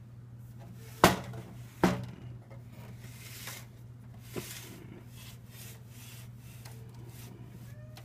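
Handling noise as a box fan is turned around on carpet: two sharp knocks about a second apart near the start, a lighter click a little later, and soft rubbing in between.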